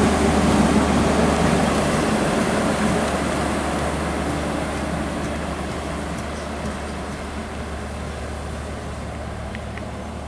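Great Southern passenger train's stainless-steel carriages rolling past on the rails, the rumble of the wheels fading steadily as the rear of the train draws away.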